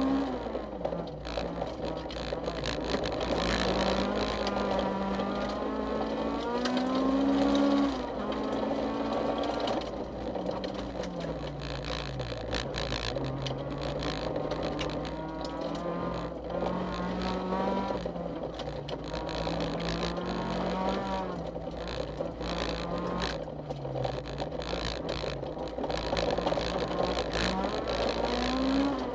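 Honda CRX rally car's engine heard from inside the cabin at speed, its pitch repeatedly climbing and falling as the car accelerates, lifts and changes gear. The loudest, highest climb comes about seven seconds in and drops off suddenly.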